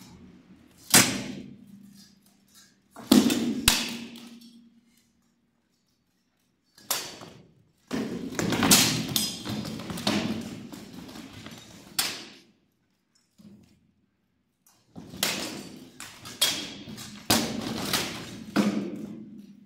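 Armoured sword-and-shield bout: swords striking shields and plate armour. Two sharp blows come about a second and three seconds in, the second ringing briefly. Two rapid flurries of clashing blows and thuds follow, in the middle and near the end.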